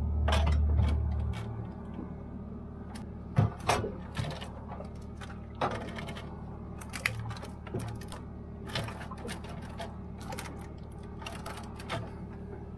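Plastic and glass drink bottles knocking and clinking as they are stacked onto the shelves of a small fridge: a scatter of irregular taps and clicks, over a steady low hum.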